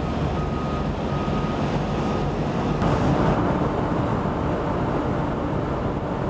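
A vehicle's reversing alarm beeping about once every 0.7 seconds over steady harbour rumble, fading out after about two seconds. About three seconds in the sound changes abruptly to a steady rumble with wind on the microphone and a faint hum.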